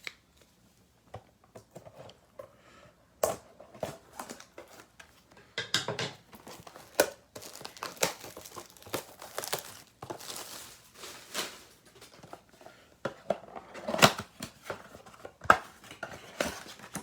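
Plastic wrapping crinkling and tearing, with cardboard rustling, as a box of basketball trading cards is unwrapped and opened and its packs taken out: irregular crackles and rips.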